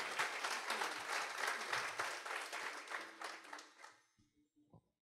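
Audience applauding, the clapping dying away to nothing about four seconds in.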